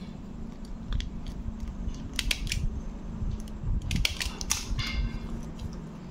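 Handheld stapler clicking as a paper strip and a plastic sheet are stapled together, amid the rustle of paper and plastic being handled: a few sharp clicks, with a busier cluster about four seconds in.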